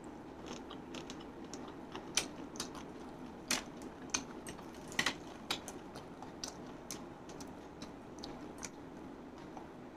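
Crispy fried chicken coating crackling as it is bitten and chewed: irregular sharp crackles and clicks, a few a second, the loudest a few seconds in.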